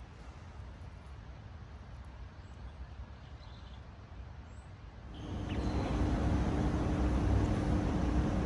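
Faint low background rumble. About five seconds in, it gives way to a louder, steady rushing noise with a constant low mechanical hum.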